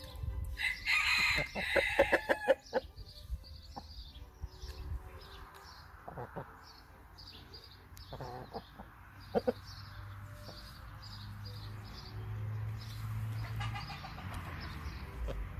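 Brahma chickens clucking and calling while they feed. About a second in there is a loud burst of calls and sharp strokes lasting about two seconds, and short high chirps repeat throughout.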